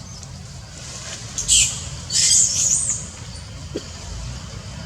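A monkey's high-pitched squeals: a short one about a second and a half in, then a longer, wavering one about two seconds in, over a steady low rumble.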